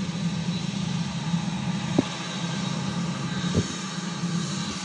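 Boeing 747-8i's GEnx turbofan engines running at taxi power: a steady rumble with a high fan whine and hiss. Two brief sharp knocks cut through, about two seconds in and again about three and a half seconds in.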